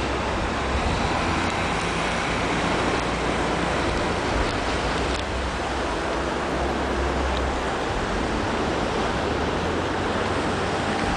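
Steady rushing of wind and surf, under the low rumble of a tipper truck's engine as it raises its body and dumps a load of sand.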